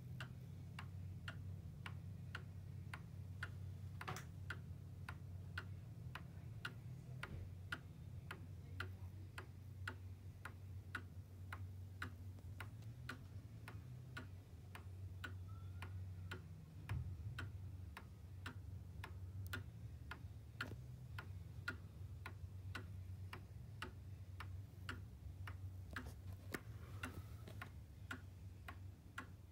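Antique German Black Forest quail cuckoo clock ticking, its pendulum escapement clicking at a quick, even pace.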